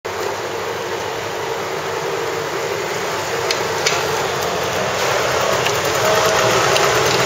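Steady motor-vehicle noise, an engine running, rising slightly in level, with a few faint clicks.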